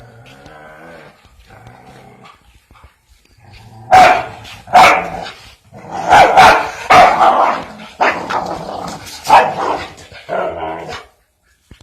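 Dog growling low at first, then barking loudly about eight times from about four seconds in, during a scuffle with a fowl.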